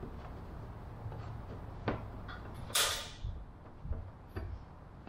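Workshop handling sounds: a sharp click a little under two seconds in, then a short scraping rush about a second later, with a few fainter taps over a low background rumble.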